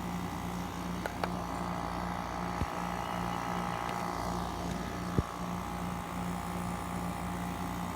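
Dehumidifier running with its compressor and fan on: a steady hum and airflow noise, with a few sharp ticks, the loudest about five seconds in.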